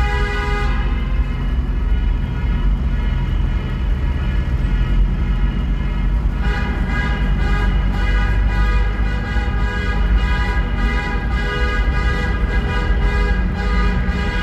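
Steady traffic rumble in a road tunnel with car horns sounding over it. The long, held horn tones fade between about one and six seconds in, then come back strongly.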